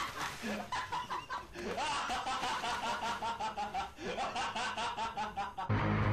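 High-pitched giggling in three bouts, each a quick run of 'hehehe' pulses. Music starts abruptly near the end.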